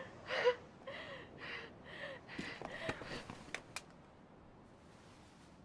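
A young woman sobbing in short, gasping whimpers about twice a second, each falling slightly in pitch; they stop about two seconds in. A few sharp clicks follow, then only faint hiss.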